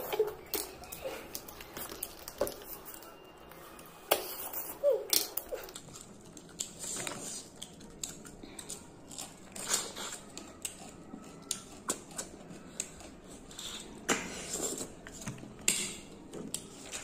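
Close-up eating sounds from a meal of snails: irregular sharp clicks of snail shells and utensils against a dish, mixed with chewing and mouth noises.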